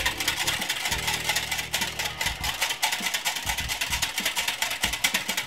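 Wire whisk beating a milky liquid in a glass measuring jug, its wires clicking rapidly against the glass, over background music with low held bass notes.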